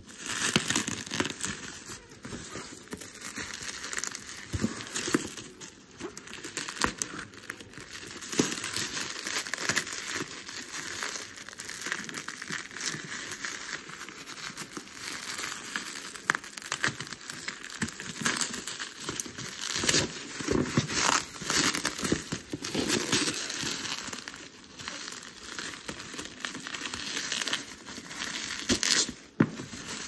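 Plastic bubble wrap crinkling and rustling as it is cut with scissors and pulled off a cardboard box, with many small sharp clicks.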